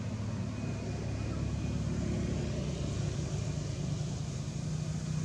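A motor engine running with a steady low hum that grows a little louder over the first couple of seconds.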